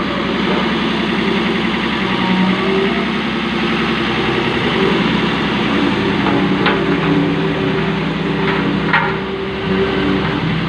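Road roller's engine running steadily, with a few short sharp knocks about two-thirds of the way through.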